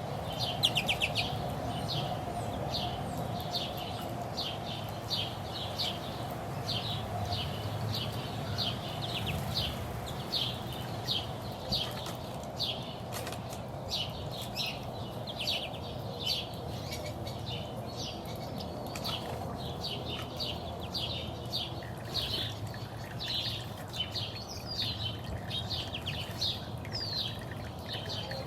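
Small songbirds chirping continuously, several short chirps a second, over a steady background hiss.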